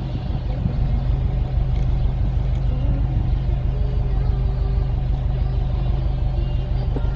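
A large flock of birds massed on the water, calling all at once in a dense, loud chorus of many overlapping short calls, over a steady low rumble.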